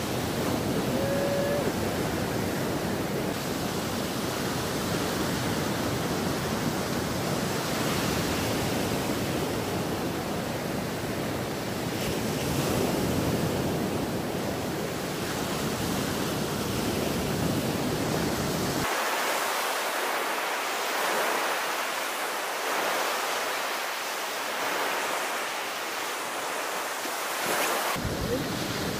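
Surf breaking and washing up a sandy beach, mixed with wind buffeting the microphone. The low rumble drops away for several seconds in the second half, then returns.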